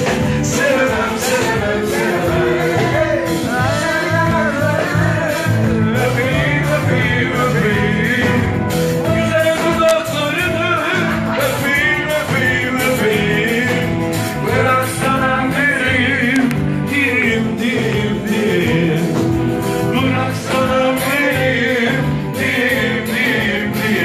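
Loud live pop band playing: a drum kit keeps a steady beat under the rest of the band, with singing over it.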